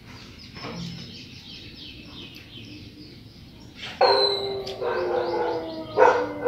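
A dog gives one long howl about four seconds in, slowly falling in pitch, then barks once near the end. Before that, birds chirp faintly.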